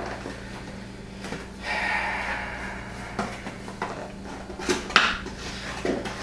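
Cardboard reel box being handled and opened by hand: scattered taps, clicks and scrapes with a brief rustle about two seconds in, the sharpest knock about five seconds in.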